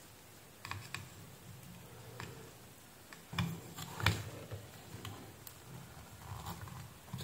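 Faint, scattered ticks and light taps of a soldering iron tip and fingers on a circuit board while desoldering a capacitor, over a low hum.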